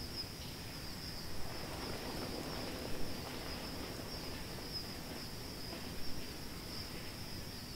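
Insect chorus: a steady, high-pitched buzz over a low background rumble, with a few brief louder ticks.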